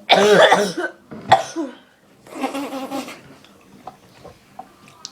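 A man coughing and clearing his throat while forcing down a dog treat: a loud hacking cough at the start, a sharp short cough about a second later, and a longer rough one in the middle, then it goes quiet apart from faint small clicks.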